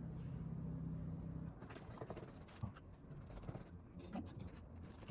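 Faint tabletop handling: scattered small taps, scrapes and rustles as donuts are lifted from a cardboard box and set on a ceramic plate. A low steady hum underneath cuts off about a second and a half in.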